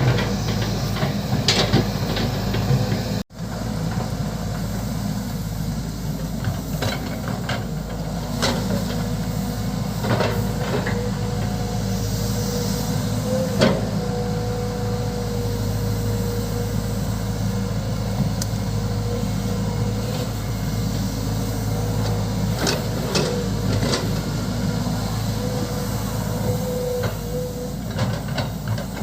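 Volvo EC200D excavator at work, its diesel engine running steadily with scattered knocks and clanks. A thin steady whine comes in partway through and fades later.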